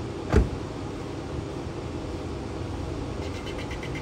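A car door shutting with a single solid thump about a third of a second in, over a steady low background rumble. About three seconds in, a rapid, evenly spaced high-pitched ticking starts, about six ticks a second.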